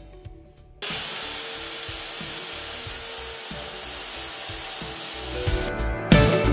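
Handheld circular saw running and ripping plywood, a steady high whine over the noise of the cut. It starts abruptly about a second in and cuts off near the end, where guitar music comes in.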